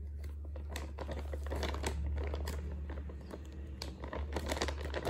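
Plastic bags crinkling as duct tape is pressed along the rim and folded over, a dense run of crackles that grows busier near the end, over a steady low hum.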